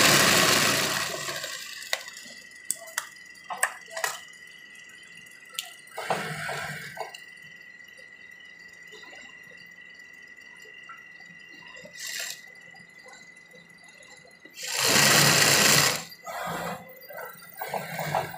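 Sewing machine stitching denim in short runs, several separate bursts with the longest and loudest about 15 seconds in, and a few sharp clicks of handling between runs.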